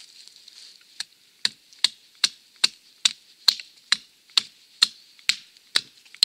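Wetterlings Bushman hatchet, choked up near the head, chopping a point onto the end of a wooden stake in quick, short strokes: a dozen or so sharp chops at about two and a half a second, starting about a second in.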